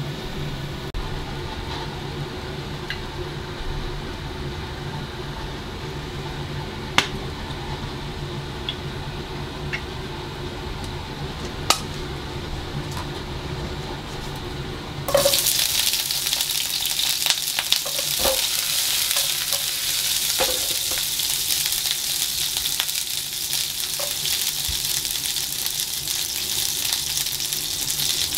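A steady low hum with a couple of sharp clicks, then, about halfway through, sliced garlic starts sizzling in hot cooking oil in a nonstick frying pan, a loud even hiss with small crackles that carries on to the end.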